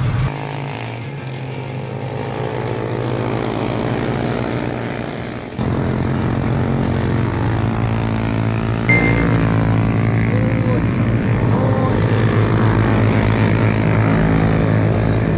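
Small racing motorcycle engines running on the circuit: a steady, dense buzz with many overtones. The sound changes abruptly twice, just after the start and about five and a half seconds in, and is louder after the second change.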